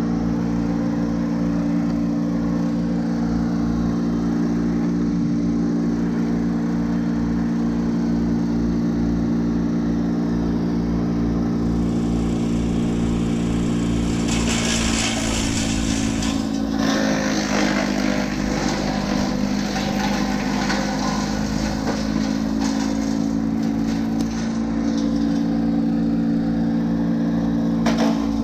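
An engine running steadily at one speed, with a hissing burst of noise about halfway through.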